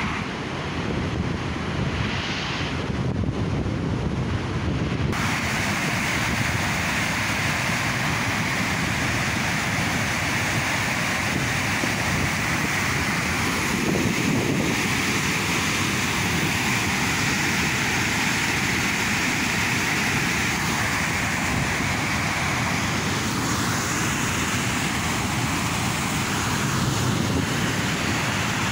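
Glacier-fed mountain river rushing over boulders: a steady whitewater noise that grows fuller and brighter about five seconds in.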